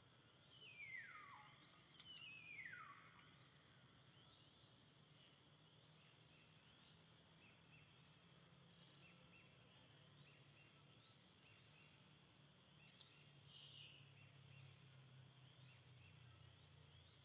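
Faint outdoor ambience with birds calling: two clear whistles that each slide steeply down in pitch in the first three seconds, then scattered soft chirps. There is a brief hissy rustle about three-quarters of the way through, over a steady low hum.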